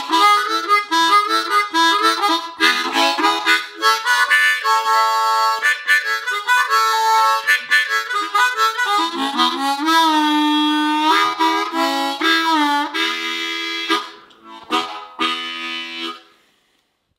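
Hohner harmonica played solo: a quick run of chords and notes, then a long held note that is bent down in pitch and wavers, and a short closing phrase before it stops near the end.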